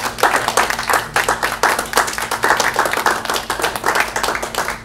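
A small group of people applauding, many hands clapping at once in a dense, uneven patter.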